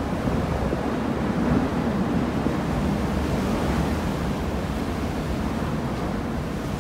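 Strong storm wind gusting through palm trees and shrubs and buffeting the microphone: a steady, low, dense rush that eases slightly near the end. The wind is from a near-hurricane-force gale.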